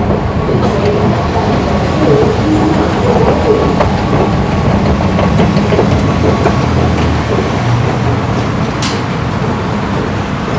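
Station escalator machinery and station ambience: a steady, even mechanical rumble with a constant low hum.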